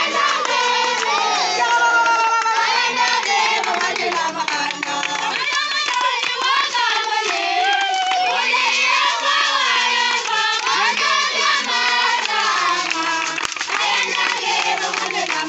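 A crowd of children and adults singing a worship song together, with hand clapping.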